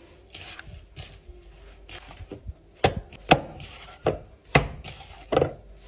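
Hands squishing minced meat and breadcrumbs in a plastic bowl, then the mince is lifted and slapped down into the bowl: about six sharp, wet slaps in the last three seconds.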